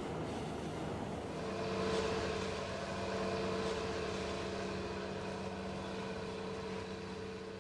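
Boat engine running steadily: a constant low droning hum over an even rushing noise, the hum growing firmer about a second and a half in.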